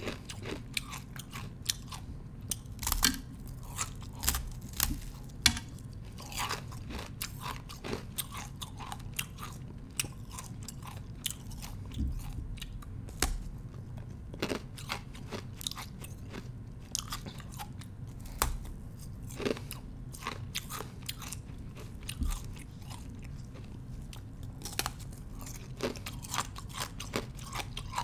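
A thin slab of ice being bitten and chewed: a continuous run of sharp, irregular crunches and cracks, with a low steady hum underneath.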